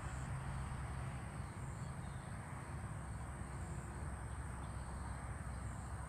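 Dawn outdoor ambience: a steady high-pitched insect drone, typical of crickets or katydids, over a low constant rumble.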